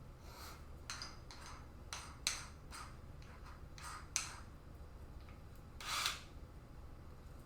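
Short, irregular scrapes and clicks of a screw being turned by hand with a screwdriver into a motherboard mounting hole. There are a few a second at first, then sparser, with a longer scrape about six seconds in.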